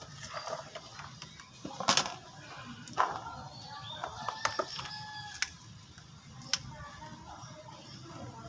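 Scattered taps and knocks as chilies and other sambal ingredients are handled and dropped into a clay cobek mortar, the loudest about two and three seconds in. A few short high calls sound in the background about halfway through.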